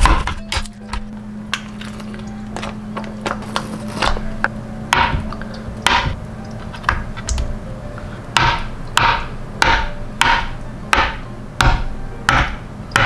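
Kitchen knife slicing through a block of tofu and knocking down onto the cutting board. Slow, irregular cuts at first, then quicker, even chops about two to three a second in the second half.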